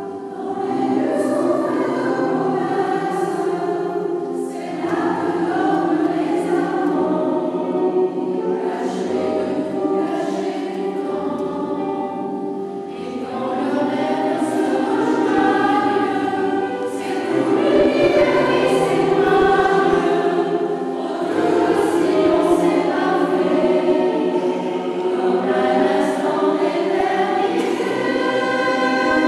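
Mixed choir of men's and women's voices singing together, in phrases that swell and ease off.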